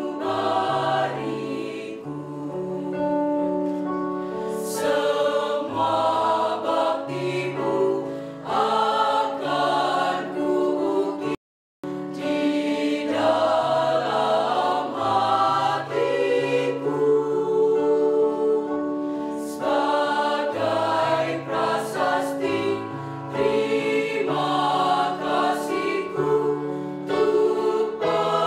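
Mixed choir of boys and girls singing, a low male line moving under the higher voices. The sound cuts out for a moment about eleven seconds in.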